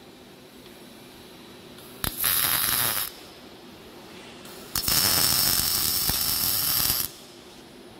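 Robotic MIG welding arc striking twice: a short weld of about a second starting about two seconds in, then a longer one of about two seconds past the middle. Each is a loud steady hiss that begins with a sharp crack and cuts off suddenly, with a low hum between them.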